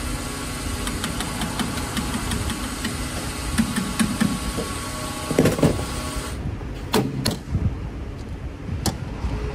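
A bus engine running steadily. About six seconds in the sound changes abruptly: the hiss drops away and a few sharp clicks follow.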